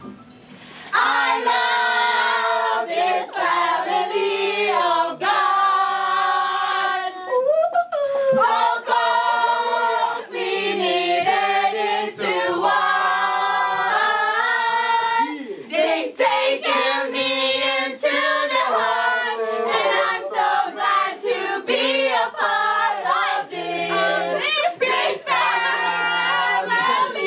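A song sung by several voices together, with held, melodic notes, starting about a second in.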